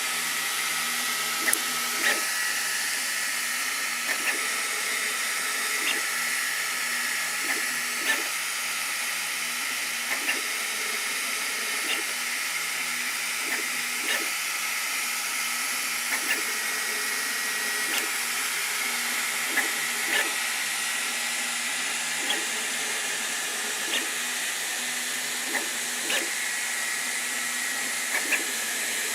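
Sovol SV08 3D printer running a print: a steady fan hiss with a faint high whine, a low motor hum that comes and goes, and short clicks every second or two.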